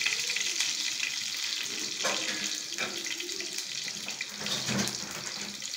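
Sliced onion and curry leaves sizzling in hot oil in a frying pan: a steady hiss.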